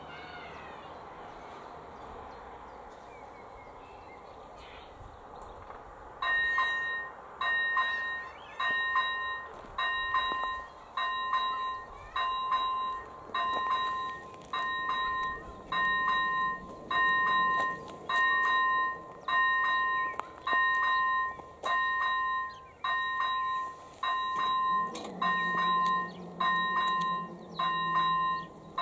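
Level-crossing warning bell (ZV-01) starting up about six seconds in and striking steadily, a little under once a second, each stroke ringing and dying away: the crossing signalling that a train is approaching. A low droning tone joins briefly near the end.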